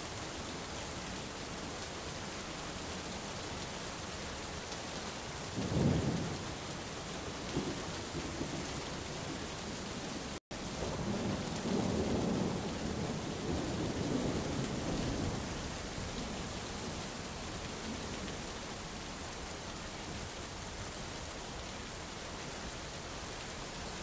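Steady rain falling on a canopy of young beech leaves, an even hiss. Low rolls of thunder rumble about six seconds in and again for several seconds from about eleven seconds. The sound cuts out for an instant near the middle.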